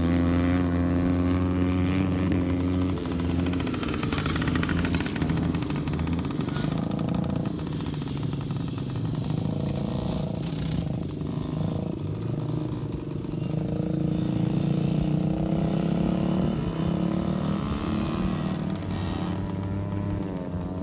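Small dirt bike engines running, a steady hum for the first few seconds, then rising and falling in pitch as the bikes ride and change throttle.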